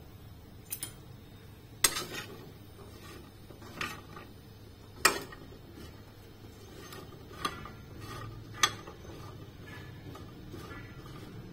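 Roasted cashews handled on a ceramic plate inside an open convection microwave: half a dozen sharp clinks and knocks of nuts and plate, the loudest about two and five seconds in, over a low steady hum.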